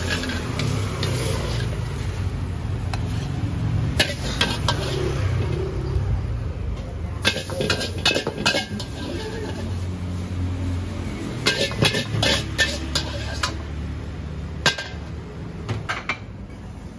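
Long-handled steel wok spatula scraping and clanking against a carbon-steel wok as a stir-fry is scooped out and the wok is worked, in several clusters of sharp metal knocks, over a steady low rumble.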